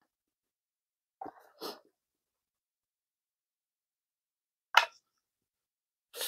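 Close-miked eating sounds from a person eating a burger: soft mouth noises about a second in, a short sharp mouth noise, the loudest, near five seconds, and a bite into the burger near the end. Nothing is heard between them.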